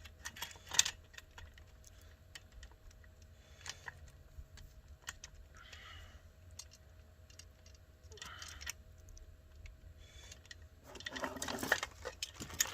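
Light metallic clicks and rattles of a saw chain being handled and fitted onto a chainsaw bar, with one sharp click about a second in and a denser clatter near the end.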